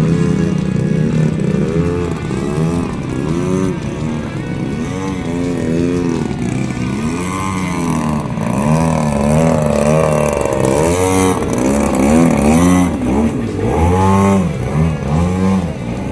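Gasoline engine of a 110cc MXS aerobatic RC plane running in flight, its pitch sweeping up and down over and over as the plane moves about the sky.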